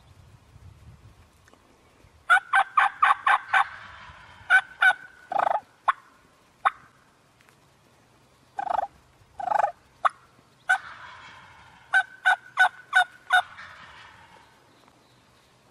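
Wild turkeys calling loudly: a quick run of about six sharp notes, a few scattered single notes, then another run of about six near the end.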